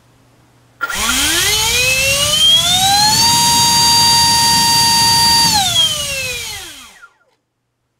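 60 mm electric ducted fan driven by a GoolRC 2850 4450 kV inrunner motor, throttled up to full power: a rising whine over a rush of air, held steady for about two seconds at roughly 57 A, 835 W and 1.18 kg of thrust, then winding down and stopping about seven seconds in.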